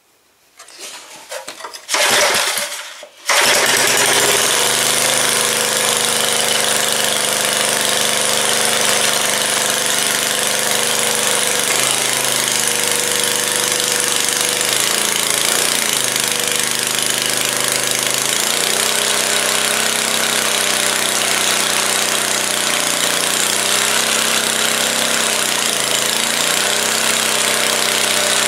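1973 Briggs and Stratton edger's single-cylinder engine, now fitted with a muffler, being started: a few sputters, then it catches about three seconds in and runs steadily. Its speed wavers now and then.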